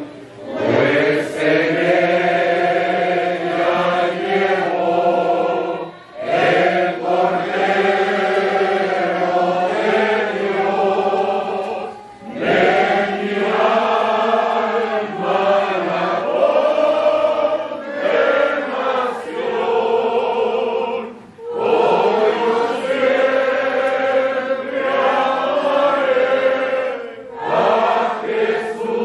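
A church congregation singing a hymn together, in long held phrases with a short breath between them about every six seconds.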